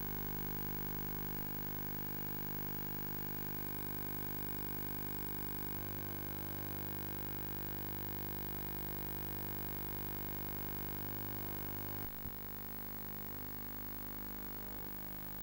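Steady electrical hum with a stack of overtones over hiss, with no sound from the action. A single click about twelve seconds in, after which the hum is a little quieter.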